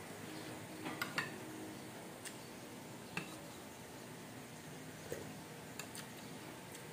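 A metal spoon clinking lightly against a dish several times, short separate clicks scattered through the few seconds, over a faint steady room hum.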